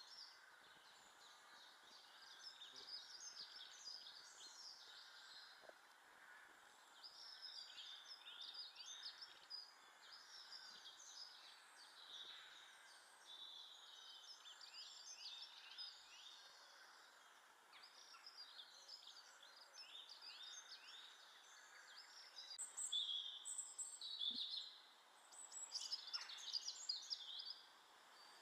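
Small garden birds chirping and twittering in quick runs of short high notes, growing louder toward the end, over a faint steady background noise.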